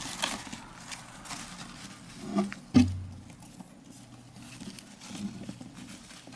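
Hamsters scurrying over crumpled newspaper and tissue bedding, a steady patter of paper rustles and small crackles. A single sharp thump stands out about three seconds in, just after a smaller knock.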